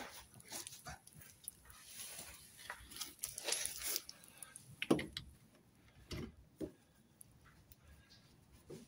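Scattered light knocks and clicks of a socket and hand tools being handled and fitted onto the nut of a bush-pulling tool, with a brief scrape or two.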